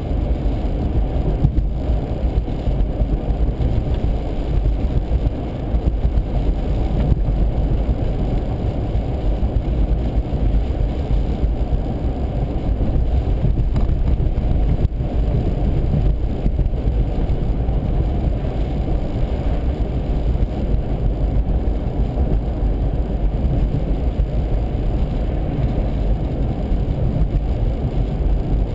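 Steady low rumble of a car driving on a snowy, icy street: tyre and engine noise.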